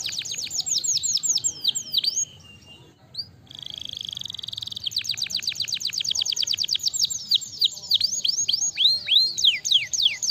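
Canary singing: fast trills of quick high notes that each sweep downward, broken about two seconds in by a short pause and a buzzy rolling trill, then rapid trills again that turn into slower, wider sweeping notes in the second half.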